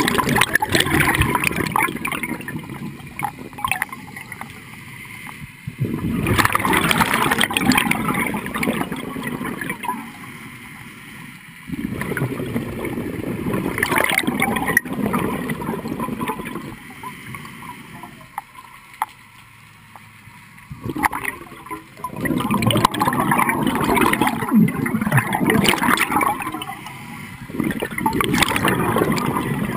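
Scuba diver breathing through a regulator underwater: loud, gurgling rushes of exhaled bubbles every five to six seconds, with quieter stretches between breaths.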